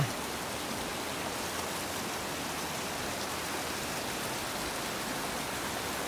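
Steady rush of running water, an even hiss with no breaks.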